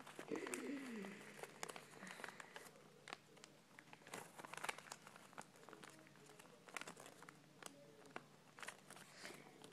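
Faint crinkling and rustling of origami paper being folded and creased by hand, in many small irregular ticks.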